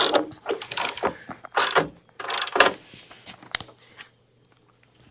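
Ratchet wrench clicking in about four quick bursts, then a single sharp click, as it turns the bolts that set the angle of a snow plow headlight.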